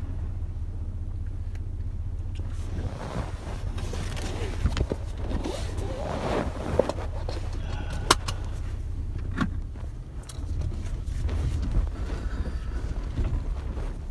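Gusty wind buffeting the microphone, a low rumble that rises and falls, with a few sharp clicks about eight and nine seconds in.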